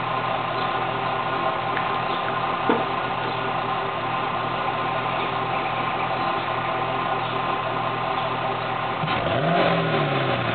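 Chevrolet Camaro with a cold air intake and stock exhaust idling steadily, heard at the tailpipes, with a short sharp click about three seconds in. Near the end the throttle is blipped once, and the engine note rises and falls back within about a second.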